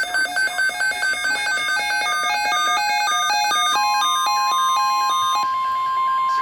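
Electronic emergency alert beeps, several pitches alternating at about four a second in overlapping patterns. About four seconds in, a single steady alert tone starts, in the manner of the 1050 Hz NOAA Weather Radio warning alarm tone that comes before a broadcast warning. The beeps stop a second or so later and leave the steady tone alone.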